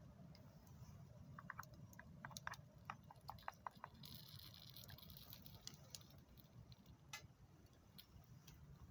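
Faint crackling of a small wood campfire: scattered small pops and ticks, thickest from about one and a half to four seconds in, with a brief soft hiss about four seconds in, over a low steady rumble.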